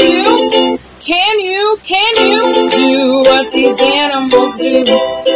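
Children's song: ukulele strumming chords in a steady rhythm, with a voice singing over it.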